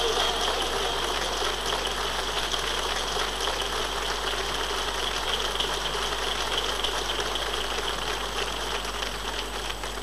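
Crowd of children and adults clapping, a dense patter of many hands that slowly eases off.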